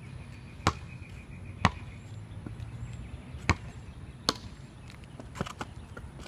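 A basketball bouncing on a concrete court: about six sharp, irregularly spaced bounces as it is dribbled and played.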